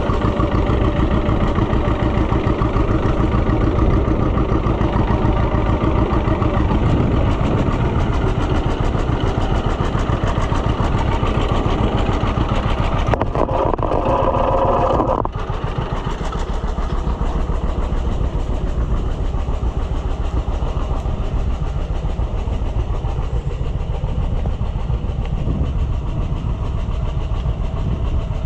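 A vehicle engine runs steadily as the vehicle is driven along. About 13 seconds in, a higher tone joins for roughly two seconds, and after that the sound is a little quieter.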